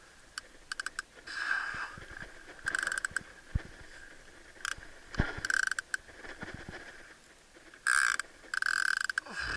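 Penn Fathom Lever Drag 30 fishing reel clicking and whirring in short bursts every second or two as it works line, with two dull knocks near the middle.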